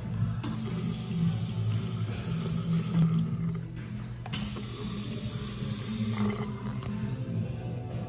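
Hand-sensor faucet running into a porcelain sink basin in two short spells of about three and two seconds, with a brief gap between.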